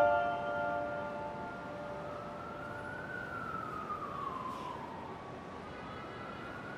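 A siren wailing quietly in a slow rise and fall, going up and down about twice, over a steady hiss; a held piano chord fades out at the start.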